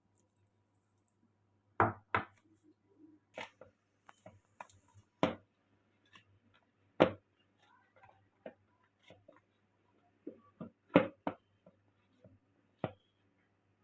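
Irregular sharp knocks and clicks of kitchen work, a dozen or so spread unevenly, the loudest about two, seven and eleven seconds in.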